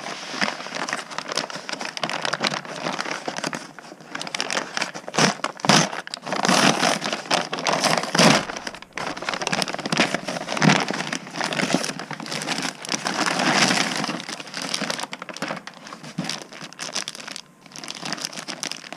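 Crinkling, rustling and crackling of a brown paper mailer being torn open and handled, in irregular loud bursts, with the clear plastic bag of the boxing gloves inside crinkling near the end.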